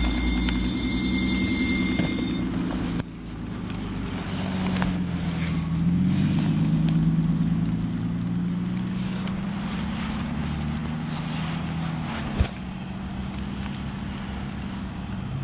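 Car engine running steadily, its pitch rising and falling slowly through the middle. A high whine stops about two and a half seconds in, and there is a sharp click near the end.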